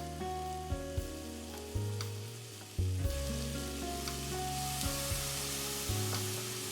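Food sizzling as it fries in a pan, the hiss growing fuller about halfway through, under background music with a repeating melody and a steady bass line.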